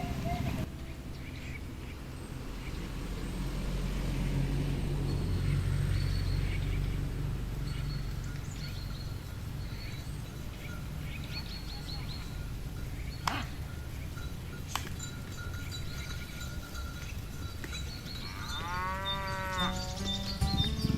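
Cattle in a pasture over a steady low rumble, with two sharp knocks in the middle and a cow mooing near the end.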